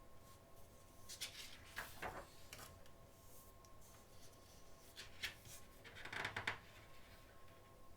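Magazine pages being turned by hand: a few short paper rustles, the longest about six seconds in, over a faint steady hum.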